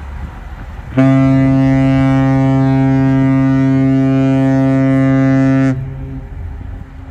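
Oil tanker's horn sounding one prolonged, deep, steady blast as a fog signal, starting about a second in and lasting nearly five seconds before cutting off, with a brief echo trailing after.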